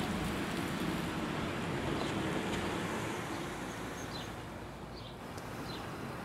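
Street traffic: a passing vehicle's engine and tyre noise, fading over a few seconds. A bird chirps a few short notes in the second half.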